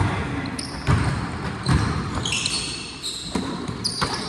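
Basketball bouncing on the court during play, in irregular thumps, with short high-pitched sneaker squeaks about two seconds in and again near the end.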